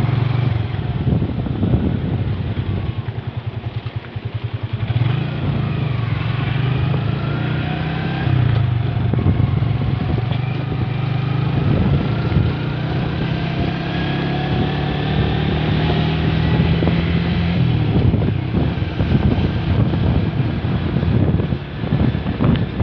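Motorcycle engine running while being ridden along a road. It slows to a rapid pulse a few seconds in, then picks up again and runs steadily.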